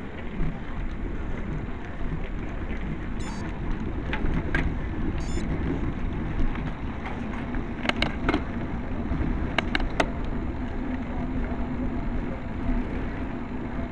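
Wind rushing over the microphone and tyre noise from a road bike riding uphill. Several sharp clicks come in pairs through the middle.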